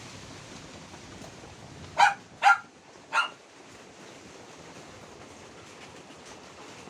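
A dog barks three times in quick succession, about two seconds in, over a steady hiss of heavy rain.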